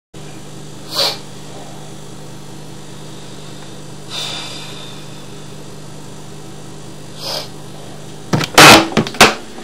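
Steady low electrical hum, with three short, faint puffs of noise about three seconds apart. Several loud, clipped bursts come near the end.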